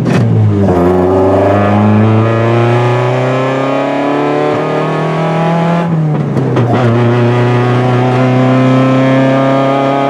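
Toyota 20-valve 4A-GE four-cylinder in a 1989 Pulsar accelerating through the gears. Its revs drop at an upshift just after the start, climb steadily for about six seconds, drop at a second upshift, then climb again. It is driven gently on a rough, unfinished tune.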